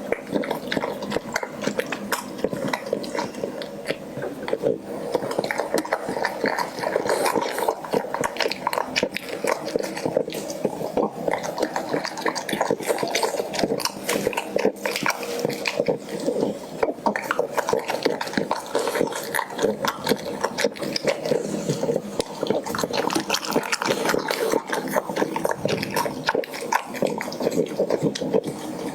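Dog eating its breakfast, chewing continuously in a dense run of quick wet clicks and smacks.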